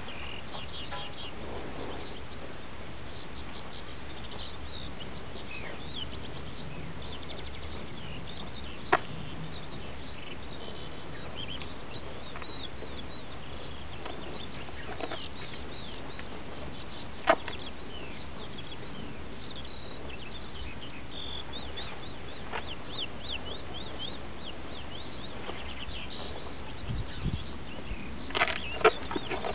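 Steady outdoor background noise, broken by a sharp click about a third of the way in and another past the middle, and a flurry of clicks and rustles near the end.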